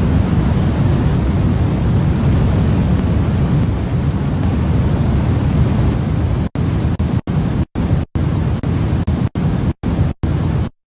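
Industrial noise music: a loud, dense wall of hiss and heavy low rumble with no clear pitch. From about six and a half seconds in it is chopped by sudden silent gaps, about seven of them, before cutting off abruptly near the end.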